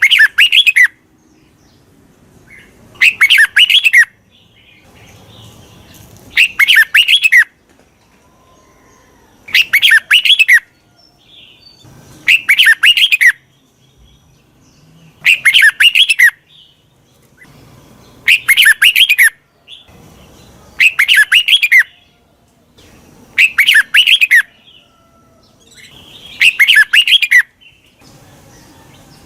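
Red-whiskered bulbul singing its short, loud song phrase over and over, about once every three seconds: a decoy bird's call used to lure wild bulbuls.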